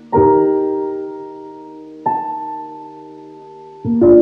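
Slow, calm background music on a keyboard: sustained chords, a new one struck about every two seconds and left to fade.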